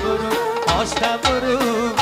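Live Tajik folk music: an accordion plays a wavering melody over a steady beat from a doyra frame drum.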